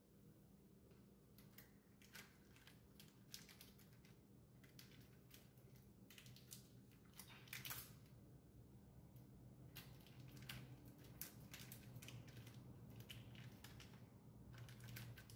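Near silence: faint room hum with scattered soft clicks and ticks.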